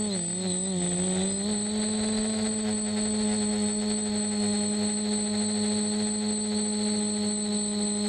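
DJI F450 quadcopter's motors and propellers humming, heard from the onboard camera. The pitch dips and comes back up in the first second or so as the throttle shifts, then holds steady, with a thin high whine above it.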